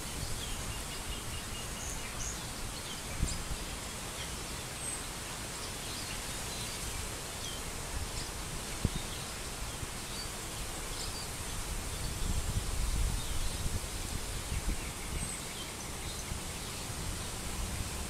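Outdoor park ambience: an even hiss of wind and rustling leaves over a low, uneven rumble, with occasional faint, short bird chirps.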